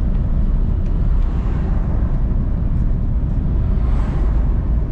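Steady low rumble of a car driving at highway speed, heard from inside the cabin: engine and tyre noise on the road.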